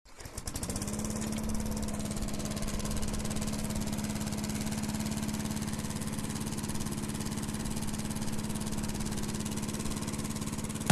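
Small lawn mower engine running at a steady speed, having picked up speed in the first second.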